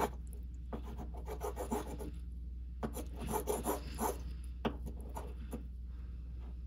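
A dull kitchen knife sawing through raw chicken breast and scraping the wooden cutting board as fat is trimmed off, in a series of short strokes that come in quick runs and stop near the end.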